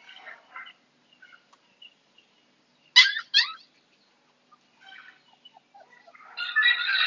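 Animal calls: a sharp click about three seconds in, followed by two quick sweeping calls, then a longer, louder run of rapid calls near the end.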